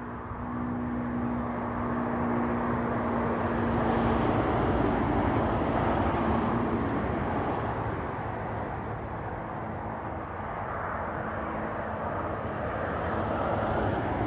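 Distant diesel passenger railcar approaching, a steady rumble of engine and wheels that swells about four seconds in and again near the end.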